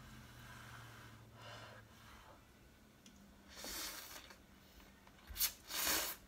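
Person slurping instant ramen noodles off chopsticks: a softer slurp about halfway through, then two short, loud slurps near the end.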